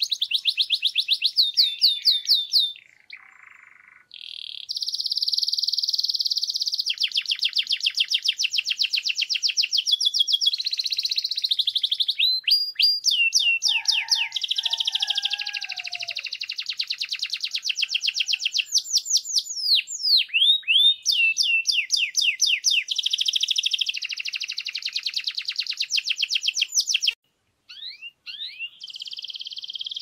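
Grey canary singing a long song of fast trills, rapidly repeated high notes with some that sweep down in pitch. It pauses briefly about three seconds in and again near the end.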